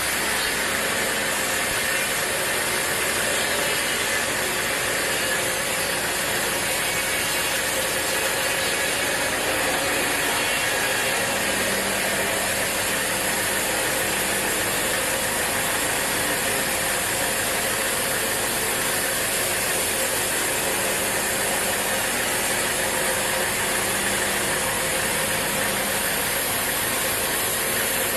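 Sawmill saw machinery running steadily, a loud, dense mechanical rattle.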